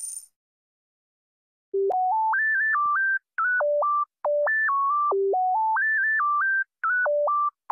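A simple tune of pure electronic beep tones, one note at a time, stepping up and down between low and high notes. It starts about two seconds in and has a few short breaks.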